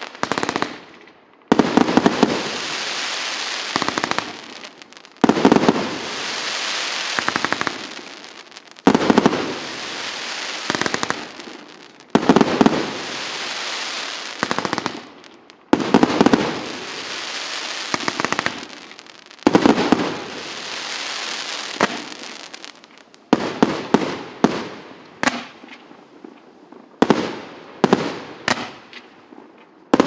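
A 178-shot, 1.25-inch consumer fireworks cake firing. Volleys go off about every three and a half seconds, each followed by a couple of seconds of crackling from the bursting stars. From about two-thirds of the way through, a quicker run of single sharp reports follows, roughly two a second.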